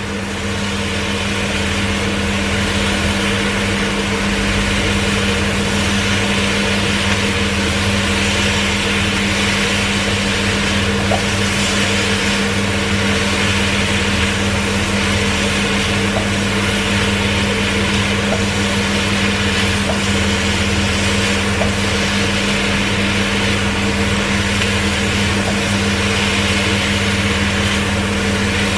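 Chopped pork belly sizzling in a wok as it browns, turned now and then with a plastic spatula, over the steady hum of a kitchen range-hood fan.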